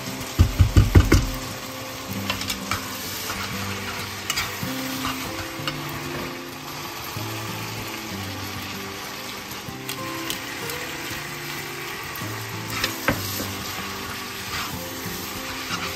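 Linguine with shrimp and cherry tomatoes sizzling in a hot frying pan as it is tossed with metal tongs, the tongs clicking against the pan now and then. A quick run of heavy thumps about half a second in is the loudest sound.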